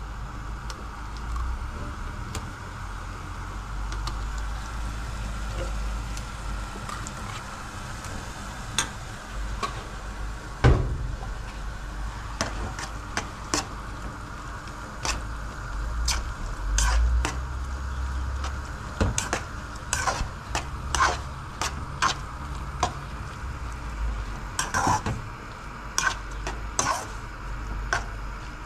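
A metal spoon stirs and scrapes cooked wheat with tomato paste in a frying pan over a gas flame, the pan sizzling softly. About ten seconds in there is one loud knock. After that the spoon clinks against the pan more and more often.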